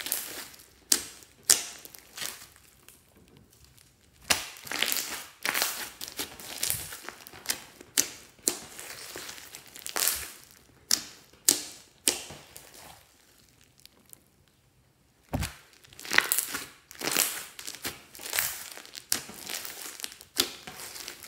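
Glossy slime mixed with foam beads being kneaded and squeezed by hand, giving irregular squishy pops and crackles. There is a short lull partway through, then a low thump.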